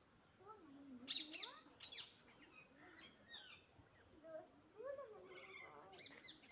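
Ducklings peeping: sharp, high, falling peeps, single or in pairs, loudest a little after a second in, that quicken into a rapid run near the end. A fainter, lower wavering sound runs underneath at times.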